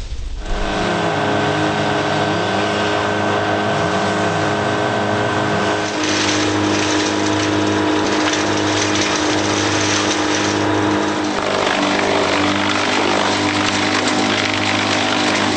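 Tracked wood chipper's engine running steadily under load as brushwood is fed through, with a harsher noise of wood being chipped through the middle of the stretch.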